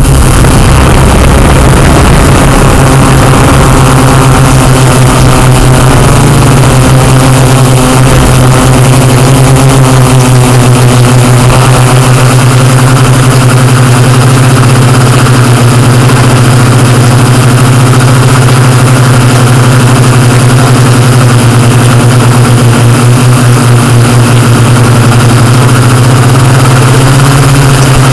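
Yuneec Typhoon Q500 quadcopter's motors and propellers running in flight: a loud, steady hum whose pitch wavers slightly, heard close up from the drone's own camera microphone.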